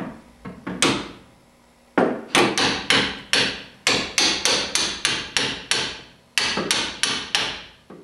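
Hammer tapping a punch held against the rear leaf spring mounting bolt of a Triumph Spitfire IV, driving the bolt out of the spring eye. A few taps, a pause of about a second, then a steady run of light taps, about three a second, each a sharp metal strike with a brief ring.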